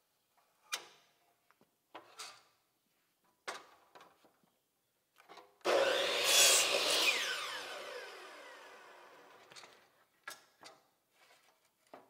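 DeWalt miter saw starting up and cutting through a wooden board about halfway in, then a falling whine as the blade spins down. Knocks and clicks of the board being set against the fence come before and after the cut.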